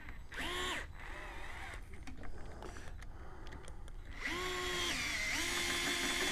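Long-handled electric screwdriver driving screws through a mounting bracket: a short spin-up about half a second in, then a longer steady whine from about four seconds in, dipping briefly and running on.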